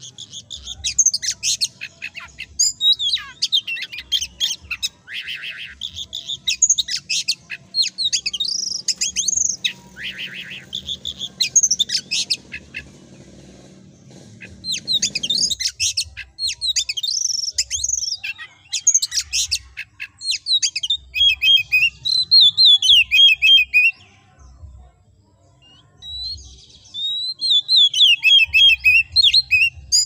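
Oriental magpie-robin (kacer) in full song: a long, loud run of varied, rapid whistled phrases and chattering notes. The song breaks off briefly about halfway and again for a couple of seconds near the end.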